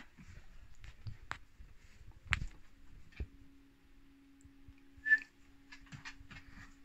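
Scattered light clicks and taps, with one sharper tap about two seconds in and a brief high-pitched squeak a little after five seconds. A faint steady hum runs under the second half.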